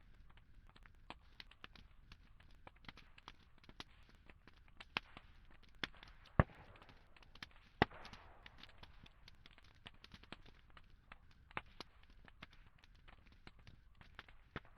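Campfire burning, the wood crackling with irregular snaps and pops, two of them much louder near the middle, about a second and a half apart.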